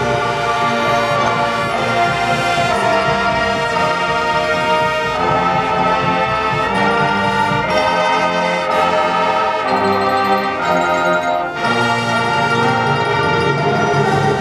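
High school marching band playing, the brass section holding loud sustained chords that change every second or so.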